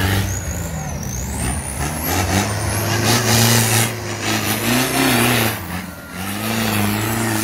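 Off-road 4x4 engine revving up and down under load, with bursts of rushing hiss over it that peak about halfway through and dip briefly near the end.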